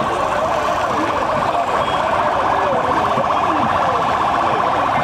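Police vehicle siren sounding continuously with a fast, even warble, over a crowd shouting.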